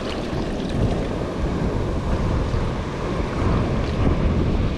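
Steady wind rumbling on the microphone over the wash of surf breaking on the beach.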